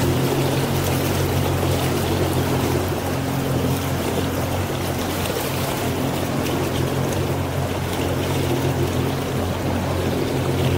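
A motorboat's engine running at a steady speed, a constant low hum, with water rushing past the hull.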